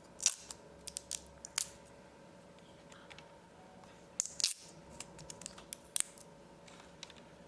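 Scattered small clicks and short scrapes of a laptop's hard drive and its metal bracket being handled, in two clusters, over a faint steady hum.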